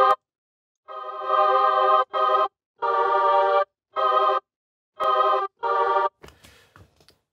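Arturia Mellotron V software instrument playing its choirs preset, sampled recordings of real singers: a series of about six held chords, each stopped sharply with a short silence before the next, ending in a faint noisy trail.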